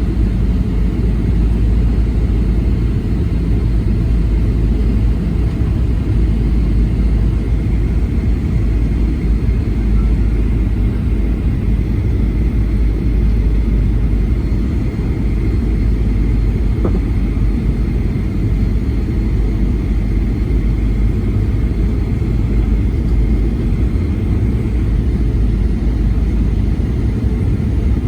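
Steady rumble of a Boeing 737-900 in flight heard from inside the cabin: noise from its CFM56 engines and the air rushing past, with a faint steady high whine over it.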